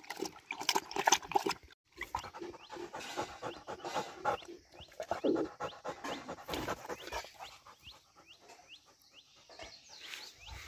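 A Rottweiler lapping water from a tub, then panting fast and hard with its tongue out, a dog tired and hot from exertion. The panting dies down after about eight seconds.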